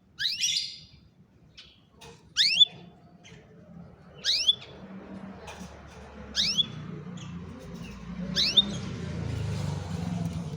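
Domestic canary giving a short rising call five times, about two seconds apart, each sweep ending on a brief clipped note. A low rumble builds underneath from about halfway through.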